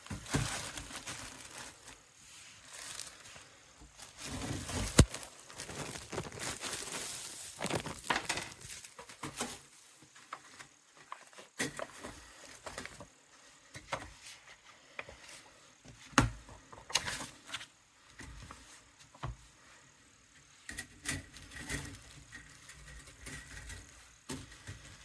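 Irregular handling noise: scattered knocks, clicks and clatter with rustling in between, the sharpest knocks about 5 and 16 seconds in.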